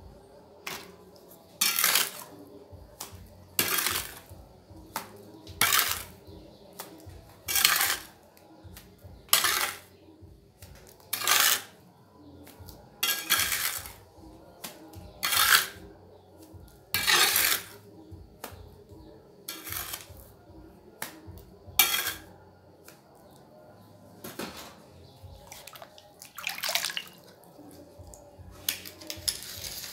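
A trowel working wet cement mortar, scraping and spreading it in short strokes that come about every two seconds.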